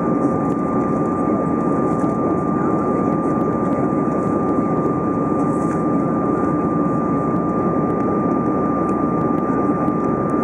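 Airbus A320 cabin noise during the climb after takeoff: a steady roar of the engines and airflow, with a steady high whine over it, heard inside the cabin by a window over the wing.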